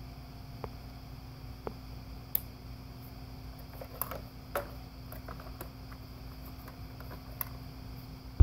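Light clicks and taps of a plastic radio-control toy garbage truck being handled and turned over, scattered over a steady low hum.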